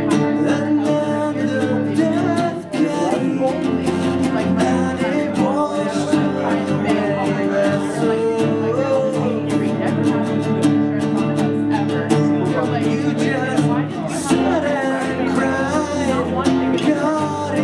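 Live music: two acoustic guitars strummed together, with a man's singing voice over them at times.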